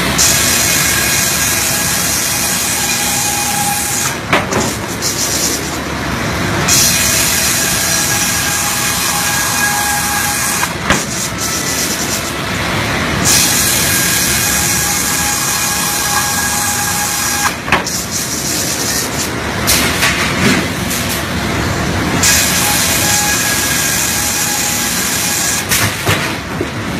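Industrial machinery running steadily, with a loud hiss that cuts in and out every few seconds and an occasional sharp click.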